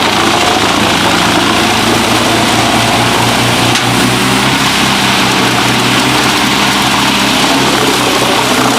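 Large wood chipper's engine running steadily at high load, with a dense rushing noise over its steady hum; the pitch shifts slightly about four seconds in.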